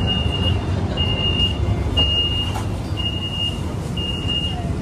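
Metro train door warning beeps: a high steady beep about once a second, each about half a second long, five times, signalling that the doors are about to close. Under it runs the train's low steady hum.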